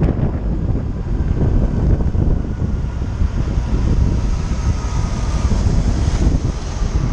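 Wind buffeting a motorcycle-mounted action camera's microphone over the steady low rumble of the motorcycle riding in city traffic.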